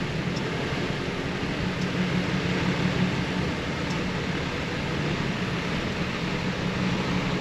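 Truck engine running steadily at low speed with road noise, heard from inside the cab: an even drone with a constant low hum.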